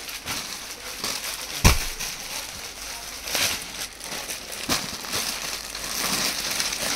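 Clear plastic packaging bags rustling and crinkling as packed suits are handled, with irregular bursts and one sharp thump a couple of seconds in.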